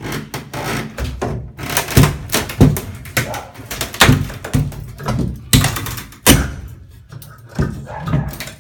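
An irregular run of heavy thuds and knocks, roughly one every half second, each with a deep low thump.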